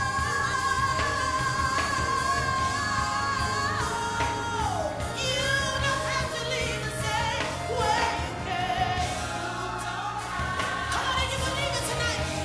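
Gospel song: voices singing long held notes with vibrato over steady instrumental accompaniment, the melody sliding down about four seconds in.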